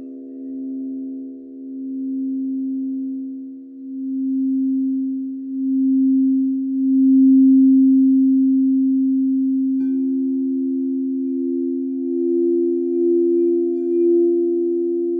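Singing bowls: one struck at the start and left ringing in a long, pure tone that swells and ebbs, then a second, higher-pitched bowl struck about ten seconds in, both ringing together.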